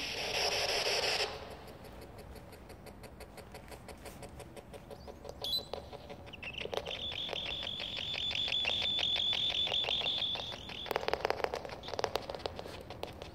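Handheld electronic ghost-hunting device: a short burst of hiss, then rapid, evenly spaced clicking. A high, steady electronic tone sounds for about four seconds midway.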